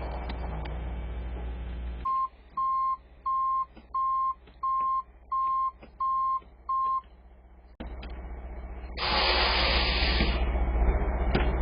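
Reversing alarm of heavy equipment on a track-construction site: eight evenly spaced single-pitch beeps, about two a second, over a low machine rumble. A loud hiss follows about a second and a half later and lasts briefly.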